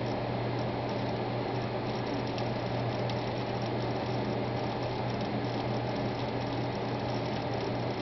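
Brand-new Seagate Barracuda 1TB hard drive running: a steady low hum from the spinning platters, with faint, irregular rapid clicking of the heads seeking.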